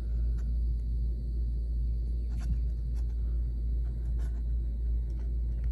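A steady low rumble with a few faint clicks scattered through it.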